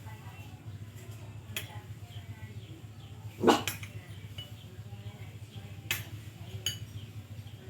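A dog gives one short bark about three and a half seconds in, over a steady low hum, with a few faint clicks around it.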